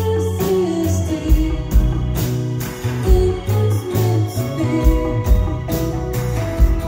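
Live band playing a slow song: a woman singing over strummed acoustic guitar, with bass and drums keeping a steady beat of about two hits a second.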